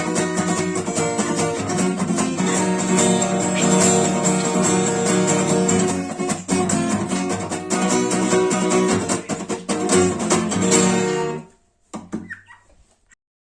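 Acoustic guitar strummed in a steady rhythm, playing the song's closing chords, then stopping suddenly about eleven seconds in; a few faint string or handling noises follow.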